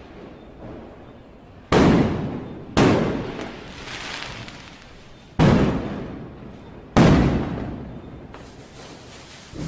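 Firecrackers going off: four loud bangs, each followed by a rumbling echo that dies away over a second or so.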